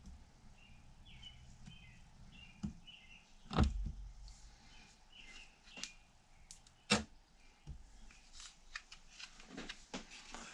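Scattered clicks and knocks of metal transmission parts being handled and set down while a C6 automatic transmission is assembled on the bench, the loudest knocks about three and a half and seven seconds in.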